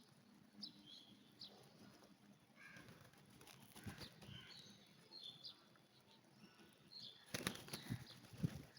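Pigeons' wings flapping in a flurry about seven seconds in, the loudest sound, with faint short high bird chirps scattered throughout.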